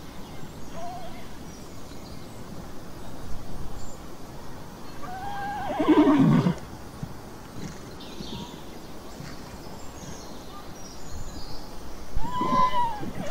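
Horse whinnying twice: a long, loud quavering call about five to six seconds in, and a shorter one near the end.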